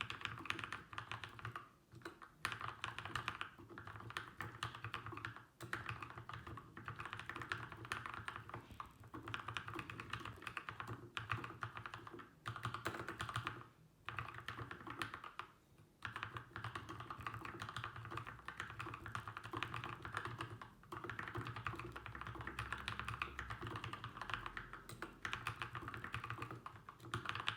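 Fast continuous typing on a Keychron K2 v2 mechanical keyboard with Gateron Black Ink V2 linear switches, lubed with Krytox 205g0 and filmed, plus a foam mod and lubed stabilisers, with a few brief pauses between runs of keystrokes.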